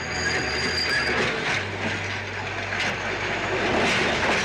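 Electric streetcar running along its rails: a steady rattling clatter of wheels and running gear over a low motor hum.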